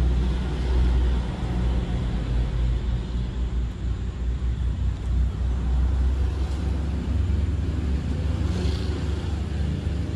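A motor vehicle engine running steadily, a low rumble with no revving.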